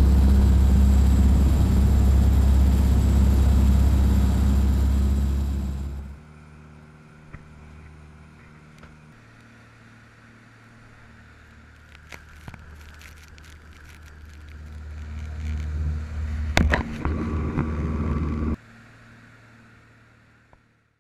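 Fishing boat's engines running underway, a loud steady low drone mixed with the rush of the wake. About six seconds in it drops much quieter, then swells again later with a few sharp knocks and cuts off abruptly near the end.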